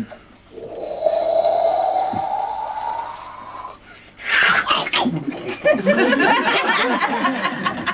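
A man's voice making sound effects instead of words: a long breathy hiss carrying a slowly rising tone, then after a short pause a sudden loud noisy outburst that runs on as rough, broken vocal noises.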